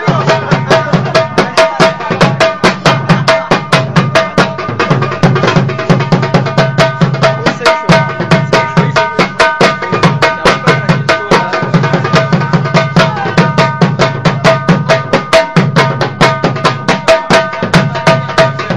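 Pashto folk music: a hand drum struck in a quick, steady rhythm of about five strokes a second, with held melodic notes sounding steadily above it.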